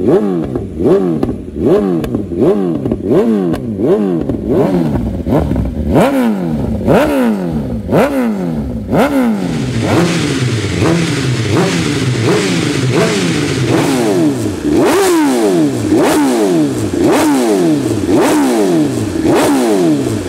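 BMW superbike inline-four engine revved hard through an aftermarket exhaust, in quick repeated blips whose pitch shoots up and drops back about twice a second, with a few higher, longer revs past the middle.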